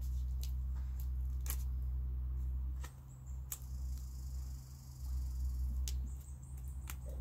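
Duct tape being pulled off the roll and wrapped around a paintbrush handle and broom handle: scattered sharp crackles as it sticks, and a drawn-out peeling hiss from about three and a half seconds in, over a steady low rumble.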